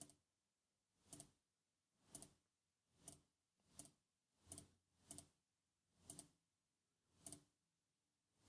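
Computer mouse clicking, faint: about nine single clicks roughly a second apart, each a quick press-and-release double tick.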